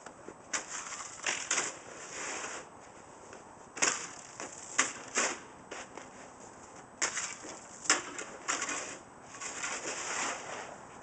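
Snow shovels fitted with spring-loaded skid plates being pushed through crusty, icy snow. It is a string of scrapes and crunches, about one a second, some ending in a sharp knock.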